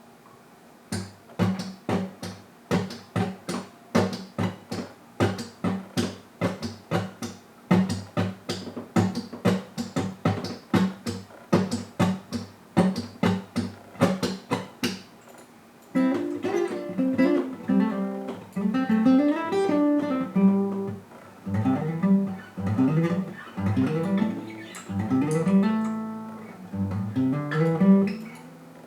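Guitar played percussively, with muted strums in a steady drum-like rhythm of about two to three strokes a second. About sixteen seconds in it switches to picked melodic notes with sliding pitches.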